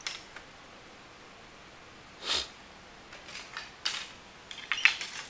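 Light clicks and taps of fishing rods being handled and swapped. There is a short breathy whoosh about two seconds in, and a quick cluster of clicks near the end.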